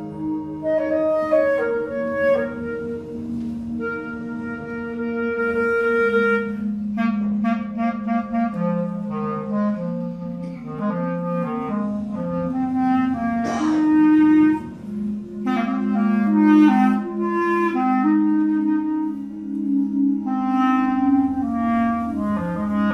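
Clarinet playing a rapidly changing line of notes over held electronic tones in a contemporary piece for clarinet and electronics, with a brief rising sweep about halfway through.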